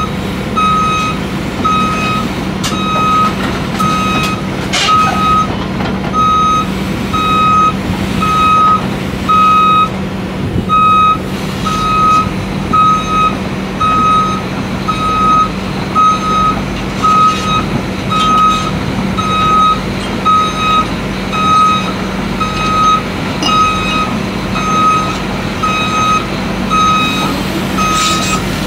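Cat 352 excavator's travel alarm beeping steadily, about one beep every three-quarters of a second, over the steady hum of its diesel engine as the machine tracks along.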